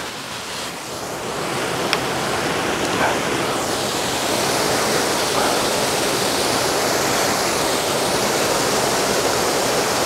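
Waterfall pouring steadily, a wide even rush of water that swells a little over the first couple of seconds, with a single small click about two seconds in.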